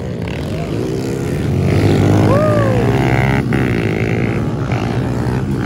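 Several pit bike engines running and revving together, with one rising and then falling in pitch about two seconds in.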